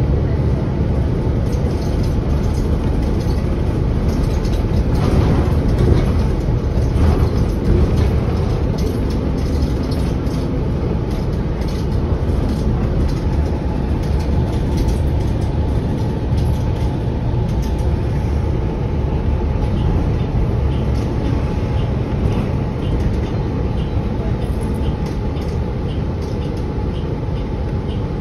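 Inside a 2023 New Flyer XDE40 diesel-electric hybrid bus on the move: a steady low rumble of the drivetrain and road noise. A faint steady whine joins about halfway through.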